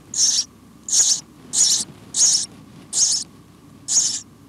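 House sparrow nestlings begging from the nest: a steady series of short, hissy, high-pitched calls, a little more than one a second.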